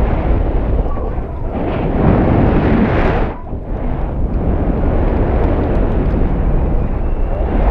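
Wind rushing and buffeting against the payload camera's microphone as a high-altitude balloon payload falls under its parachute after the balloon has burst. A loud, steady rush that swells about two seconds in and drops away briefly around three and a half seconds.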